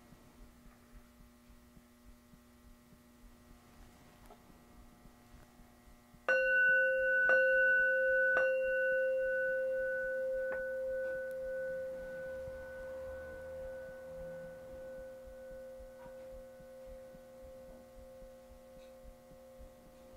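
Buddhist altar bell (rin) struck three times with its wooden striker, about a second apart, starting about six seconds in; each strike leaves a clear ringing tone that slowly fades away. A faint steady hum runs underneath.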